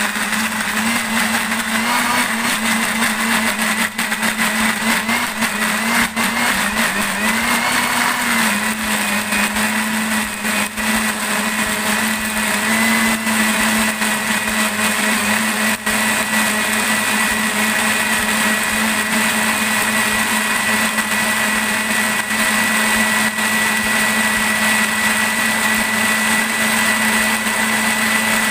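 Electric countertop blender motor running hard, pureeing large red chilies and tomatoes with the other spice-paste ingredients. Its pitch sags and recovers a few times in the first eight seconds or so as the chunks load the blades, then holds steady once the mix has turned to a smooth purée.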